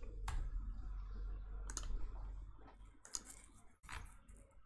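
Computer keyboard and mouse clicking: a handful of separate sharp clicks spread out, over a faint low hum.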